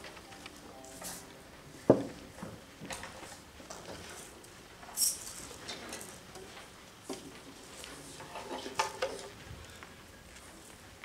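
Congregation stirring: scattered light knocks, clicks and rustles, with one sharp knock about two seconds in.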